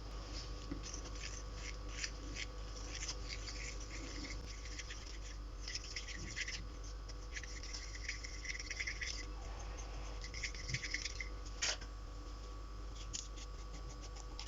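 Dry scratching and scraping in short, irregular bursts, with one sharp click about three-quarters of the way through.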